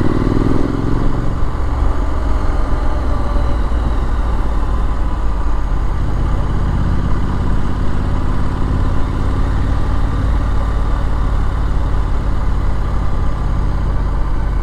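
Triumph Street Scrambler's 900 cc parallel-twin engine running steadily while riding, with heavy wind rumble on the microphone.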